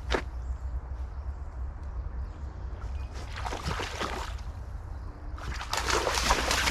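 Footsteps on an outdoor path: a short run of steps about three seconds in, and steady walking again from about five and a half seconds in, over a continuous low rumble.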